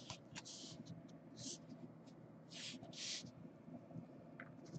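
Faint, short swishes of glossy Donruss Optic trading cards sliding against one another as they are handled and flipped, four or so times, over quiet room tone.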